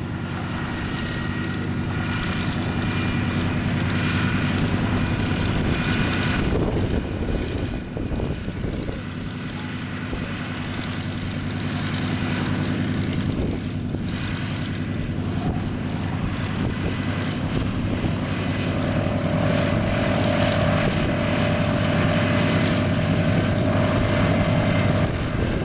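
Douglas DC-3 Dakota's two radial piston engines running on the ground with propellers turning: a steady, throbbing engine note whose loudness rises and falls a little. A higher steady tone joins in about three-quarters of the way through.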